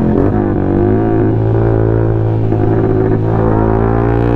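Suzuki Gixxer's single-cylinder engine running through an SC Project aftermarket exhaust, with a steady, really loud note that rises slightly in pitch near the end.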